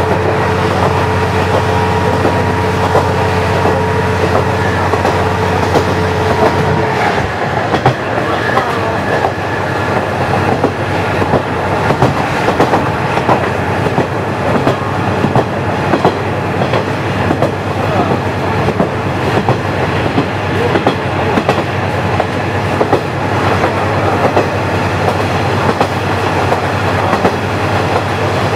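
KiHa 40 diesel railcar under way, its engine drone and a steady whine dropping away about seven seconds in. The car then runs on with the wheels clicking over the rail joints.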